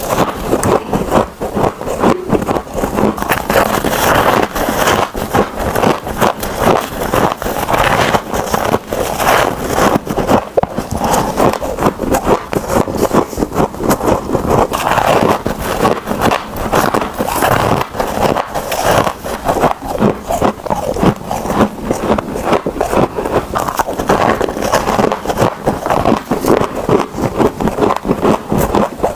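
Close-miked crunching of packed freezer frost being bitten and chewed: a dense, fast crackle of many small crunches with no pause.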